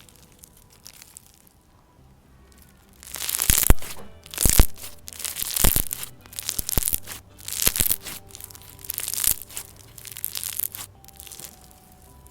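Crunchy, bubbly white-glue slushy slime being squeezed and pressed, giving bursts of crackling crunches and bubble pops about once a second, starting about three seconds in. Faint background music underneath.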